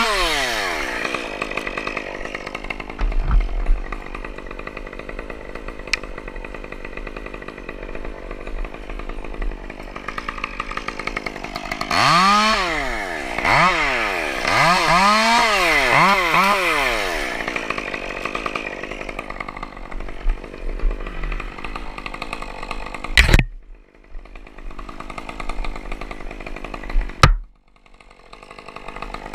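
Chainsaw running: it winds down from a rev to idle at the start, then is revved up and down about four times in quick succession midway. Near the end come two sharp knocks, and after each the sound suddenly drops away to almost nothing.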